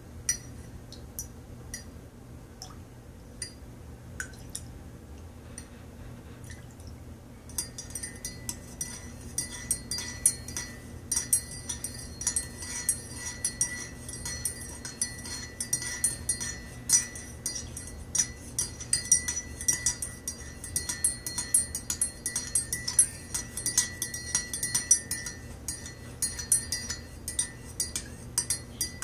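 Metal teaspoon stirring coffee in a ceramic mug, clinking against the inside of the mug. For the first several seconds there are only a few scattered taps. From about eight seconds in the clinking turns rapid and continuous, with a light ringing from the mug.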